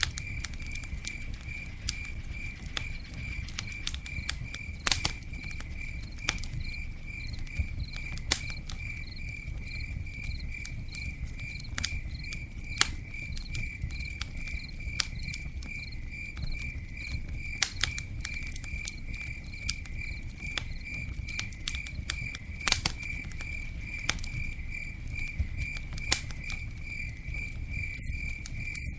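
Campfire crackling, with sharp irregular pops over a low steady rumble. Behind it an insect chirps in a steady high pulse, about three times a second.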